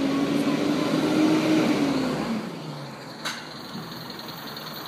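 Garbage truck engine revving as the truck pulls forward, its pitch rising and then falling away after about two seconds, then running lower and steadier. A single sharp click about three seconds in.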